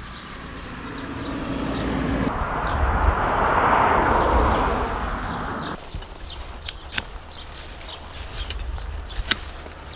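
Garden ambience with birds chirping. A rush of noise swells over a few seconds and cuts off abruptly a little past halfway, and a few sharp clicks follow.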